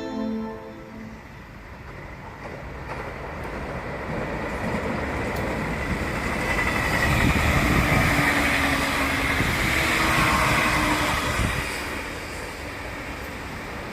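Electric train running through the station at speed: its rumble and rail noise build up, peak around the middle, then ease off as it passes.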